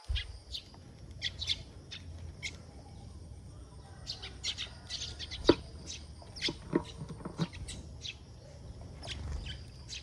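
A group of sparrows chirping: many short, scattered chirps from several birds at once. A few sharp taps sound among them, the loudest about five and a half seconds in.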